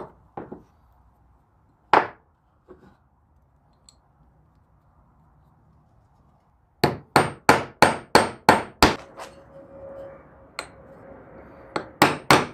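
Hammer tapping: a few separate knocks, then from about seven seconds in a quick even run of about eight taps, three or four a second, with a faint ring, and a few more taps near the end.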